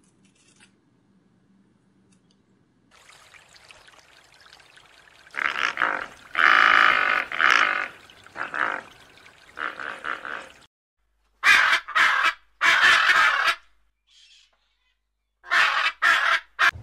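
Loud, harsh bird calls over a faint hiss. A long run of calls starts about five seconds in, and short squawks come in clusters near the end.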